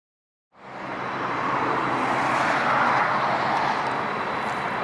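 Boeing 767-400ER airliner's twin General Electric CF6-80C2 turbofans on final approach: steady jet engine noise with a thin high whine. It fades in about half a second in and grows louder over the next couple of seconds as the aircraft comes nearer.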